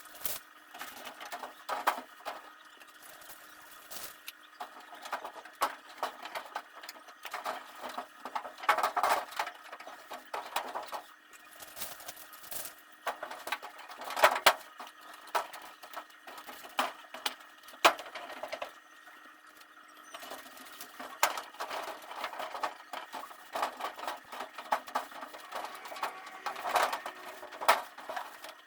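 Irregular knocks, clinks and short scrapes of household items being handled and put away, the loudest clatter about nine and fourteen seconds in, over a faint steady hum.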